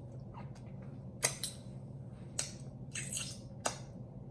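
Close-up eating sounds: a handful of short, scattered wet smacks and clicks over a low steady hum.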